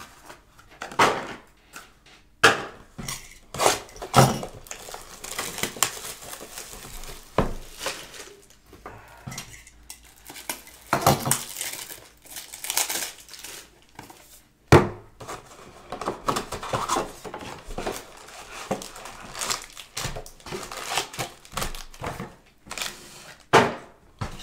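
A 2020 Panini Prizm football hobby box being opened by hand: crinkling and tearing of the wrapping, with a run of separate knocks and taps as the packs are taken out and stacked on a table.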